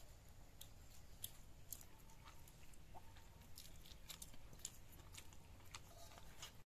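Faint eating sounds: scattered small clicks and smacks of chewing and of fingers mixing rice in a steel plate, over a low background hum.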